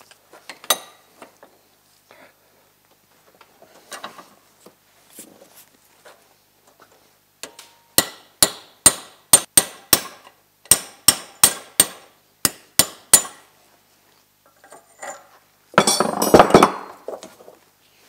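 Hammer driving a steel punch against the spring-retaining tab on a snowmobile bogie wheel arm held in a vise: about fourteen sharp metallic strikes at roughly two to three a second, bending the tab out of the way to free the spring. A few seconds later comes a brief, louder metallic clatter.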